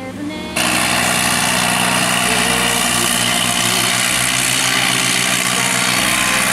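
John Deere 330 combine harvester running under load while harvesting, its engine and threshing machinery making a loud, steady hum with a whine over it. It cuts in suddenly about half a second in, after the tail of background music.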